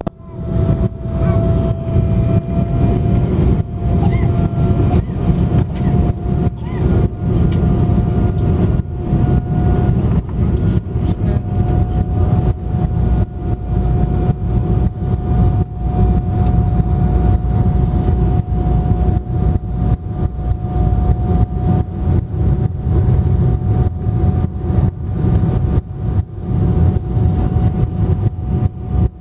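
Cabin noise inside an Embraer 195 airliner in flight on approach: the steady rumble of its GE CF34 turbofan engines and the airflow, with a steady whine that rises slightly in pitch over the first ten seconds or so. Frequent short clicks and knocks run through it.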